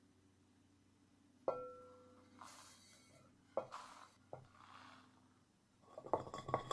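A terracotta saucer knocks against a clay flower pot with a short ringing clink, then sand is poured from the saucer into the pot, hissing in several short pours between further clay-on-clay knocks. Near the end comes a quick rattle of grains and clicks as the last sand is tipped in.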